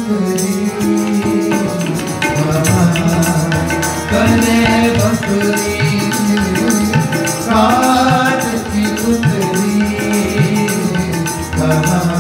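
Sikh kirtan: harmonium melody with tabla drumming keeping a steady rhythm.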